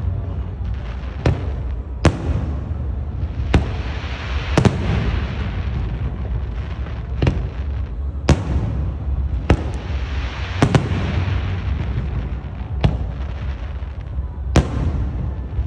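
Aerial fireworks shells bursting: about a dozen sharp bangs at irregular intervals, some a second apart and some two seconds apart, with crackling between them and a steady low rumble underneath.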